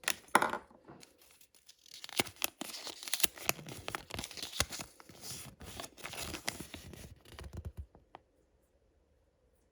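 Candy wrapper being torn open and crinkled: a short rip right at the start, then several seconds of dense crackling rustle that stops suddenly, leaving near silence near the end.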